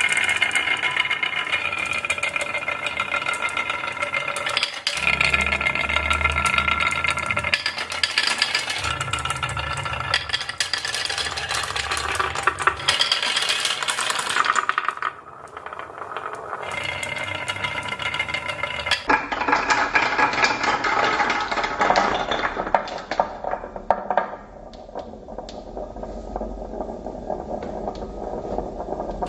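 Marbles rolling and clattering down plastic gutter tracks and slides, a steady rattle dense with quick clicks and knocks.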